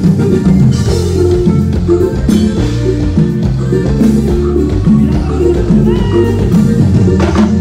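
Live regional Mexican dance band playing loud through the PA, with electric bass and drum kit most prominent and a bajo sexto strumming along.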